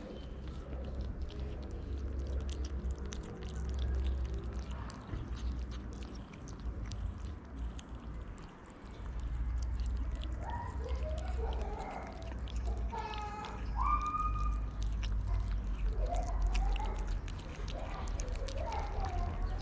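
Two kittens eating wet cat food from a plate: steady chewing and smacking with many small wet clicks. A few short calls come in the middle, over a steady low rumble.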